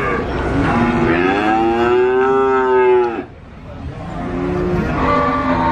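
Cattle mooing: one long call of about two and a half seconds that stops abruptly, then a second call starting about a second later.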